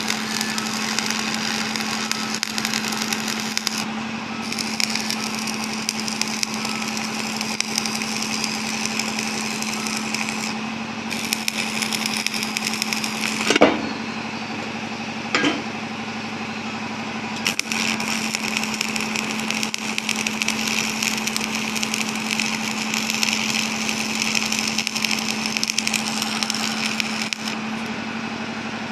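Arc welding: the electrode arc crackles and hisses in stretches of a few seconds, stopping and restarting, over a steady machine hum. Two short sliding squeaks come near the middle.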